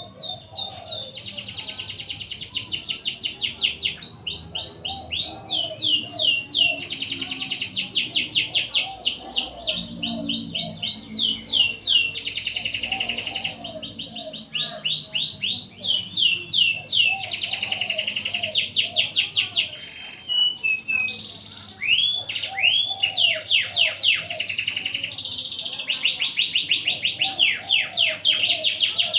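Domestic canary singing a long, continuous song of fast trills and rapid sweeping notes, with a short break about two-thirds of the way through. A fainter, lower repeating warble runs underneath.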